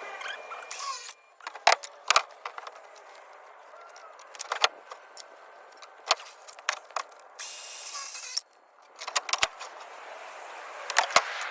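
Ridgid 18-volt cordless circular saw cutting through 2x4 lumber in two short cuts of about a second each, one near the start and one about two-thirds through, with sharp knocks and clicks of the wood and saw being handled between them.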